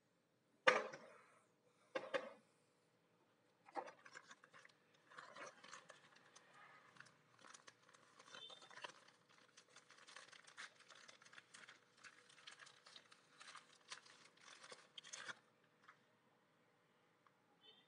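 Two sharp knocks on a tabletop, then about eleven seconds of a clear plastic parts bag being crinkled and handled.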